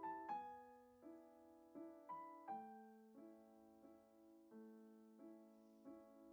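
Quiet, slow background piano music, a new note or chord struck roughly every three-quarters of a second and left to fade.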